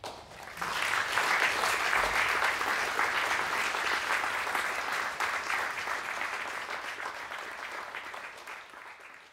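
Audience applauding, building up within the first second and slowly dying away toward the end.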